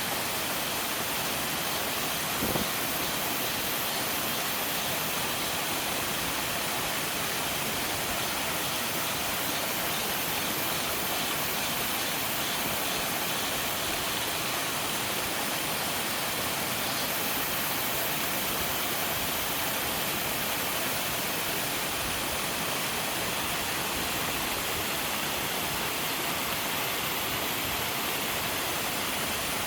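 A three-tiered mountain waterfall rushing steadily: a constant, bright hiss of falling and splashing water that does not change.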